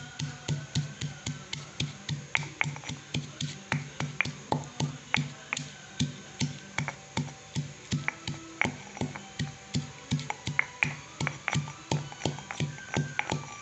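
Stone mortar and pestle pounding garlic cloves and cumin seeds. A steady rhythm of about three strokes a second, each a dull thud with a sharp click of stone on stone.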